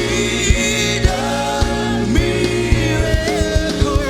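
Gospel worship song: voices holding long sung notes over sustained keyboard chords, with a steady drum beat of about two hits a second.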